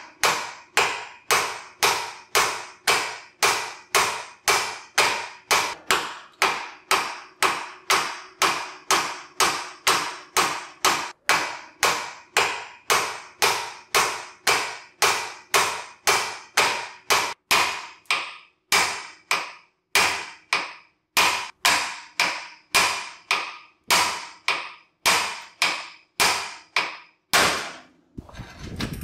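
Hammer blows on the rusty steel spindle at the upper ball joint of a 1956 Chevrolet's front suspension: sharp, ringing metallic strikes at about two a second, spacing out a little in the second half and stopping just before the end. The blows are meant to knock the ball joint loose from the spindle so the suspension comes apart.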